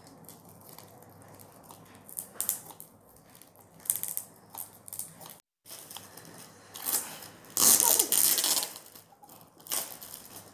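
Scissors snipping through shiny foil and cellophane gift wrap, with crinkling and rustling of the wrapping. The sound comes in scattered snips and crackles, the loudest rustle about three-quarters of the way through.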